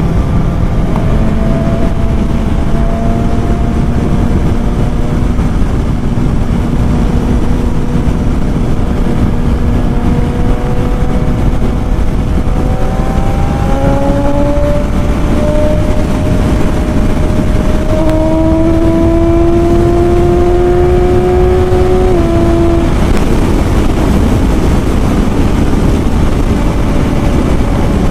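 BMW S1000 XR inline-four engine under way on the road, heard through a heavy, steady rush of wind on the microphone. Its note climbs slowly as the bike gathers speed, steps higher about halfway through, and drops away about three-quarters of the way in.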